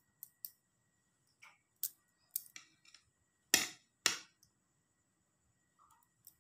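Metal spoon clinking and scraping against a ceramic plate while turning over stir-fried vegetables: a series of light clicks, with two louder knocks in quick succession a little past the middle.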